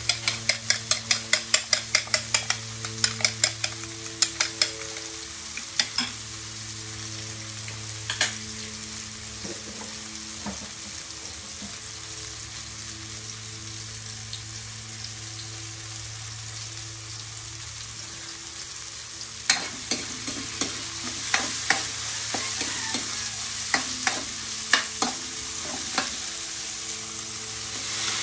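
Sautéed tomato, onion and garlic sizzling in a metal wok over a gas burner, with a spatula scraping and tapping the pan: a quick run of about four strokes a second at first, then only now and then, and a steady low hum underneath. The strokes pick up again about twenty seconds in, and near the end the sizzle grows louder as sliced bitter gourd is tipped into the wok.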